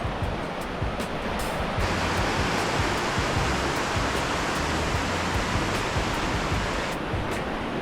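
Steady rush of flowing water, with background music and a repeating low beat underneath.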